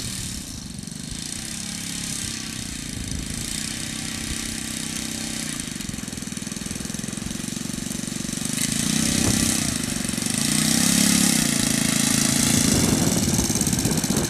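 Saito four-stroke glow engine of a radio-controlled model Cessna running steadily, getting louder about nine seconds in.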